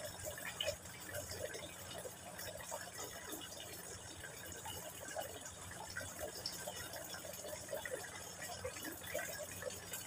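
A thin stream of water from a hose trickling and splashing into a small pond, a steady run of small irregular drips and splashes, with a faint steady low hum underneath.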